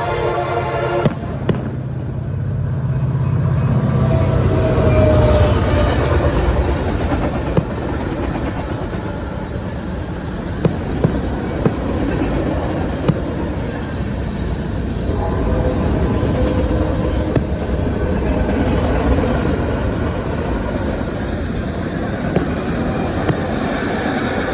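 A train passing with a steady low rumble of locomotive engines and rolling wagons, and sharp clacks from the wheels every few seconds. A sustained multi-note tone stops abruptly about a second in.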